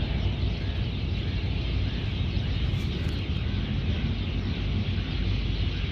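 Steady low rumble and hiss of background noise, with a faint high chirp repeating about twice a second.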